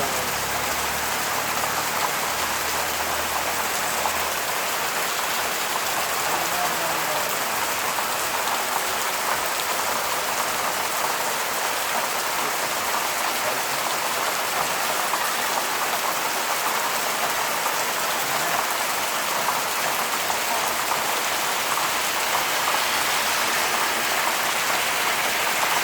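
Heavy rain falling, a steady, dense hiss of drops on surfaces.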